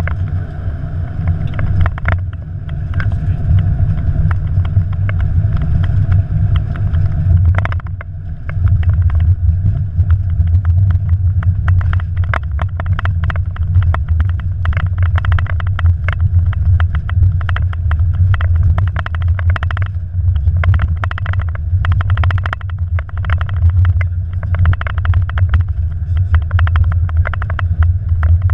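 Airbus A330-200 rolling down the runway after touchdown, heard from inside the cockpit: a steady deep rumble that grows louder about eight seconds in, with frequent irregular rattles and knocks from about twelve seconds in.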